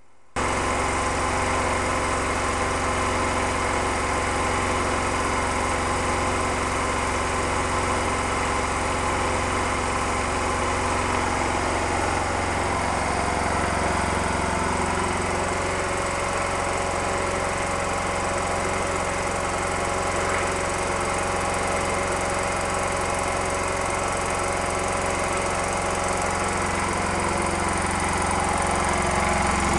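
Rix SA6 three-stage, oil-free scuba air compressor, driven by a 5 hp single-phase electric motor, running steadily with an even rapid pulsing from its pistons.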